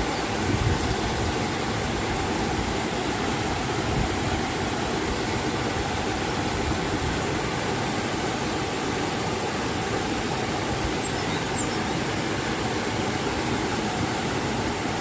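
River and waterfall water rushing steadily, an even wash of noise with no breaks.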